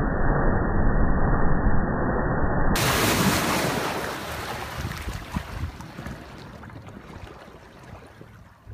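River water splashing and rushing as an SUV ploughs through a shallow crossing, muffled at first and turning clearer about three seconds in, then the wake washing over the bank stones and fading away.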